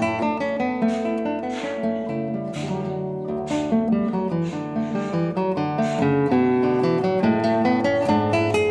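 Background music: acoustic guitar plucking and strumming chords.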